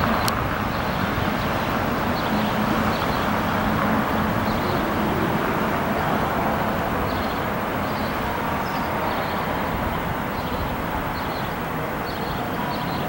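Airbus A320's IAE V2500 jet engines at taxi power, a steady rush of noise with a faint whine, slowly getting a little quieter.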